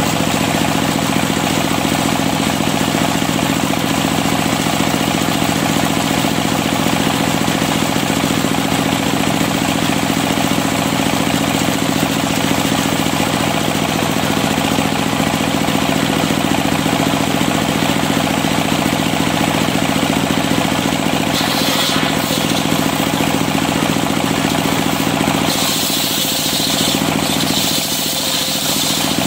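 Large engine-driven circular sawmill blade running steadily with a constant drone. About two thirds of the way through, and again near the end, it bites into a kayu afrika (Maesopsis) plank, adding a harsher, hissing cutting sound.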